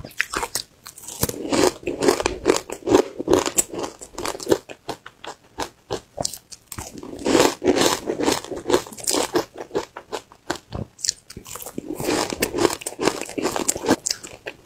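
Close-miked biting and chewing of frozen matcha ice chunks: repeated crunching and crackling as the ice breaks between the teeth, in clusters with a short lull about halfway through.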